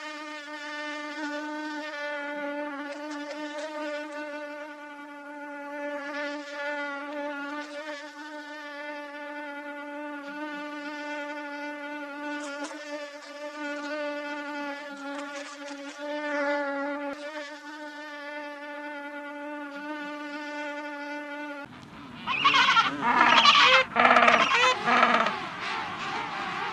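A mosquito's steady, high-pitched whine of beating wings. About 22 seconds in it gives way suddenly to loud, harsh calls from penguins, louder than the whine.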